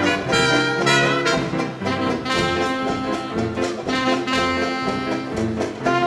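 A 1920s-style hot jazz dance band playing an instrumental passage, with brass carrying the melody over a pulsing bass line.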